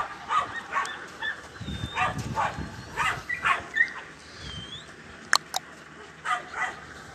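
Belgian Malinois puppies giving many short, high yips and whines, thickest in the first four seconds, with two sharp clicks a little after five seconds in.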